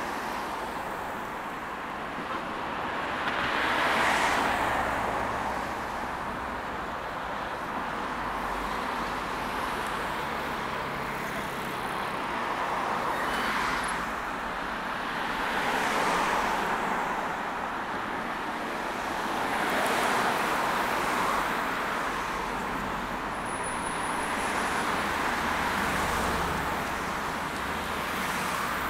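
Road traffic: cars passing one after another, each tyre-and-engine rush swelling and fading over a second or two, about five passes, over a steady background of traffic noise.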